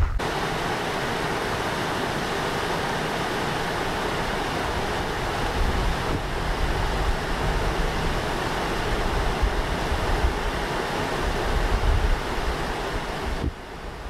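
Steady rush of a stream running over a small rocky riffle, with gusts of wind buffeting the microphone as low rumbles. The rush drops away shortly before the end.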